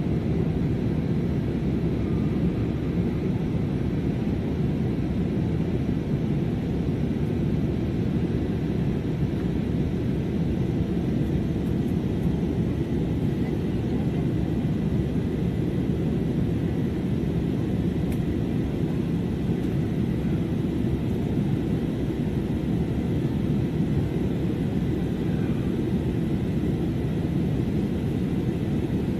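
Airliner cabin noise in flight: a steady, low rumble of engine and airflow noise with a faint, even high whine.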